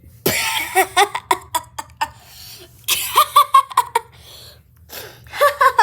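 A person laughing in three bouts of quick, breathy, repeated vocal bursts.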